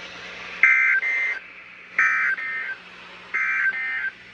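Three bursts of SAME digital data tones from a NOAA Weather Radio broadcast, starting about 1.3 s apart: the end-of-message code that closes a warning, over light radio hiss.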